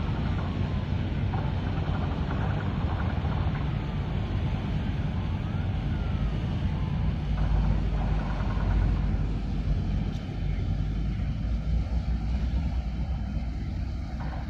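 Low, steady rumble of a 180 m bulk carrier's engine as the ship passes close by. A faint wailing tone rises and falls through about the first half.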